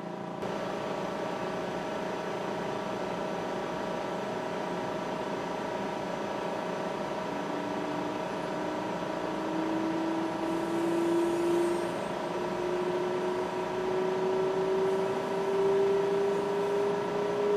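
Vacuum pumps of a Leica carbon coater pumping down the sample chamber. The roughing pump runs with a steady hum, and about seven seconds in the turbo pump starts spinning up with a whine that rises slowly in pitch.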